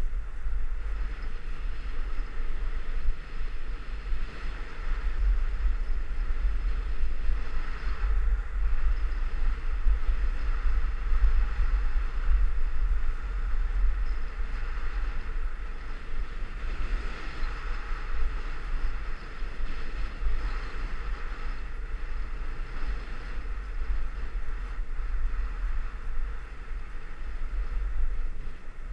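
Wind buffeting an action camera's microphone while riding downhill, a steady low rumble, over the hiss of the rider's base sliding on packed snow that swells and fades at times.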